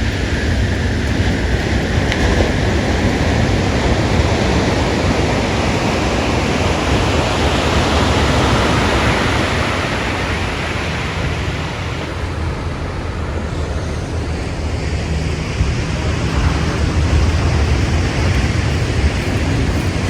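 Ocean surf washing ashore in long surges, one swelling up and easing off midway and another building near the end, over a steady deep rumble of wind on the microphone.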